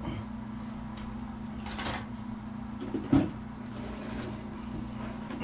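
A person moving about and handling things over a steady low hum: a short rustle about two seconds in and a single knock a little after three seconds.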